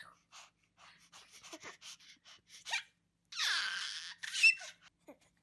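Baby laughing while being tickled: a run of short breathy gasping giggles, then a louder, drawn-out breathy shriek of laughter a little past halfway, with a high squeal just after it.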